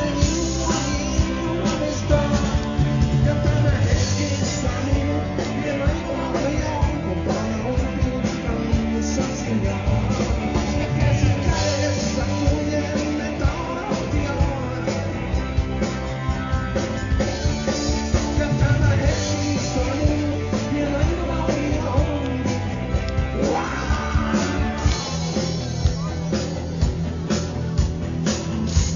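Live rock band playing through a stage PA: electric guitars, bass guitar and a drum kit, with a singer's voice.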